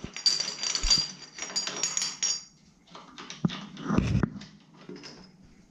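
A metal thread-cutting tool from a tap seat replacement kit is turned by hand to back it out of a wall tap body. Metal scrapes and clinks with a ringing ring for about two and a half seconds. A couple of sharp knocks follow a little later.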